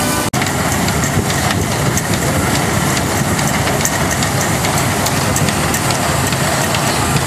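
A steam traction engine belt-driving a threshing machine, the two running together steadily with a constant light rattle. The sound cuts out for an instant about a third of a second in.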